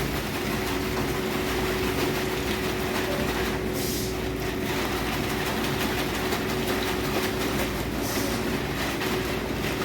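A machine running steadily with a constant hum under an even, rushing mechanical noise.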